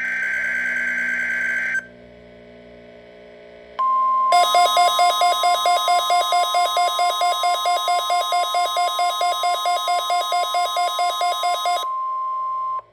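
NOAA Weather Radio weekly-test signal played through a Midland WR-120 weather radio. A buzzy two-tone digital data burst (the SAME header code) lasts about two seconds, followed by a short quiet. Then a steady warning alarm tone starts, and the radio's own alert alarm beeps rapidly over it, about four beeps a second, until the beeping stops about a second before the tone ends.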